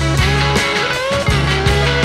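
Background rock music with guitar over a steady bass and drum beat.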